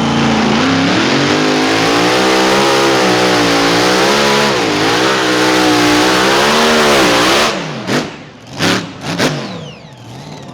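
Pull vehicle's engine at full throttle under load, its pitch wavering up and down on a rough, bouncing ride. The engine cuts off about seven and a half seconds in, followed by three short loud bursts.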